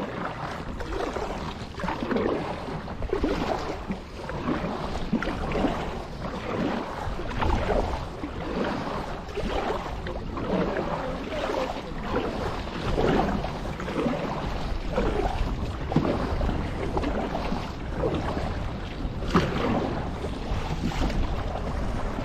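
Water splashing and lapping against a kayak as it moves, with wind buffeting the microphone in a steady low rumble.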